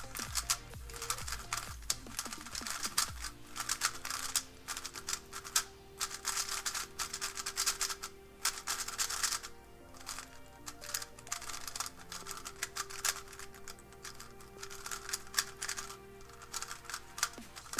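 Rapid, irregular plastic clicking and clacking of a MoYu WeiLong WR M 3x3 speedcube being turned for the first time out of the box, its turning still a bit dry. Background music with a melody comes in about three seconds in.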